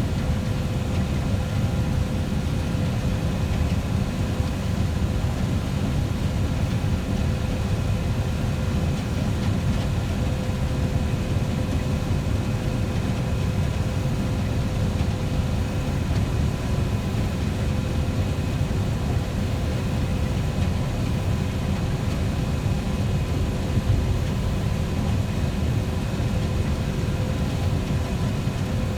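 Heavy farm machinery running steadily: a low engine drone with a few faint steady whining tones above it.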